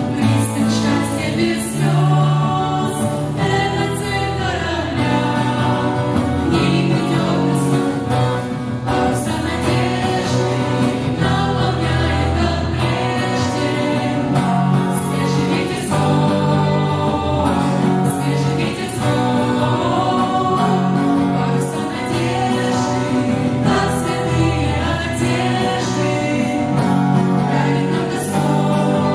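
Choral music: a choir singing over an instrumental backing with a steady beat.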